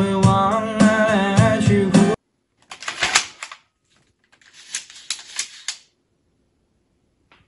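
Background music that cuts off about two seconds in, followed by two bursts of rapid clicking and clattering from an ARMPA laser-cut wooden mechanical arm, its plywood gears and linkages moving. Each burst lasts about a second, the first a little after two and a half seconds in and the second around four and a half seconds in.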